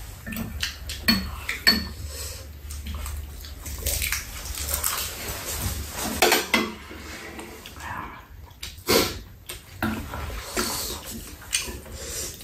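Two people eating a meal of spicy chicken soup: spoons and chopsticks clinking irregularly against bowls and a pan, with sipping and chewing sounds in between.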